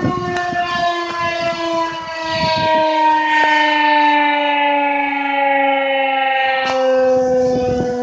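Rotating tornado siren sounding a loud, steady multi-tone wail that slowly falls in pitch as it winds down near the end of its test.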